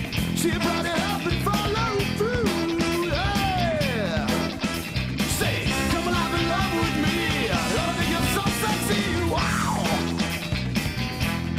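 Rock music soundtrack with a driving drum beat, bass and a lead line that bends up and down in pitch.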